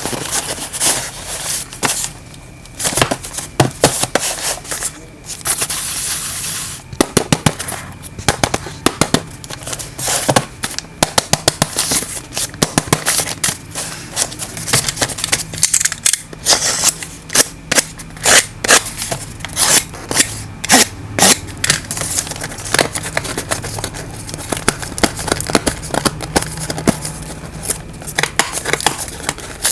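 Packaging being handled and unpacked: rustling with many sharp clicks, taps and crackles throughout.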